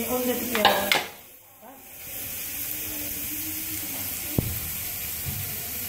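Tinday gosht curry simmering in an open pressure cooker, a steady sizzling hiss, with one short click about four seconds in.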